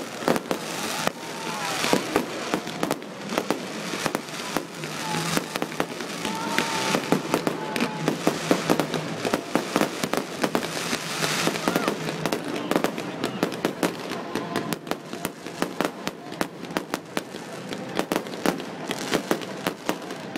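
Aerial fireworks bursting: a dense, continuous run of sharp bangs and crackles, many per second, busiest in the second half.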